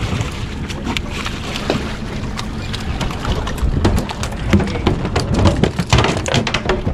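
A snoek splashing and thrashing at the surface as it is reeled to the boat's stern, then swung aboard, with a rapid run of sharp slaps and knocks in the last few seconds. A steady rumble of wind on the microphone runs underneath.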